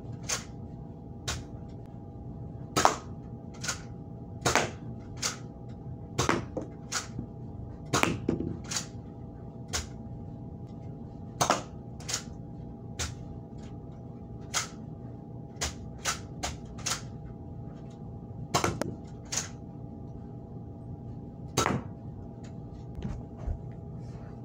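Nerf blaster firing foam darts at cardboard box targets: dozens of sharp clacks and knocks at irregular intervals, some in quick pairs, mixing the blaster's shots with darts hitting the targets and knocking some over.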